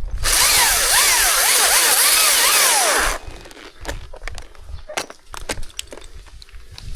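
Chainsaw cutting through wood for about three seconds, its pitch dipping and rising as it bogs under load, then stopping abruptly. Scattered cracks and snaps of wood and branches follow.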